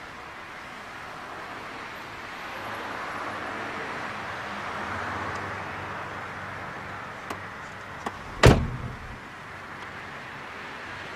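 A car door shut with one loud slam about eight seconds in, after a couple of small clicks, over a steady background hiss.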